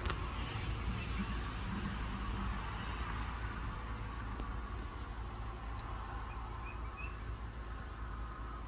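Insect chirping in a steady rhythm, about two high chirps a second, over a low steady rumble.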